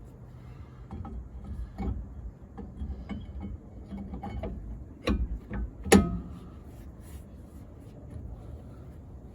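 Hand tools at work on a car's rear wheel hub: scattered clicks and knocks, with the loudest, sharp knock about six seconds in.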